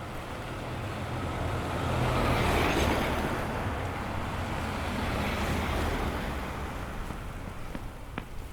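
A car passing on a snow-covered street: a rush of tyre and engine noise that swells to its loudest about two to three seconds in, then fades away, over a steady low rumble.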